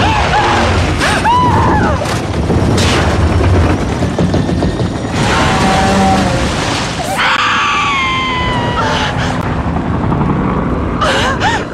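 Film sound of a freighter exploding: a deep, heavy rumble with several sudden blasts, strongest in the first few seconds and then fading. A woman screams in anguish over it, long falling cries in the second half, with a music score underneath.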